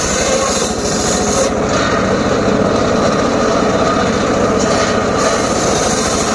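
Homemade circular saw running steadily and cutting through short lengths of teak wood, its blade noise brightening and easing a few times as it works.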